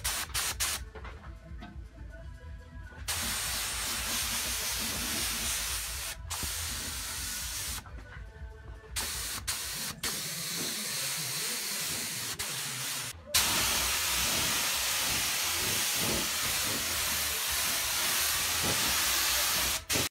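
Compressed-air paint spray gun spraying in long steady hisses, broken by a few short pauses and sudden stops.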